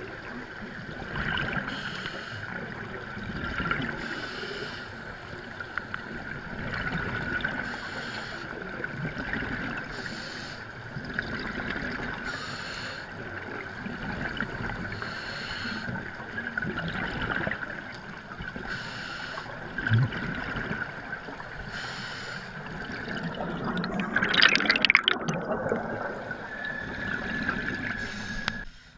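Underwater sound heard through an action camera's waterproof housing: scuba exhaust bubbles gurgling and trickling over a steady high tone, with a louder rush of bubbles near the end.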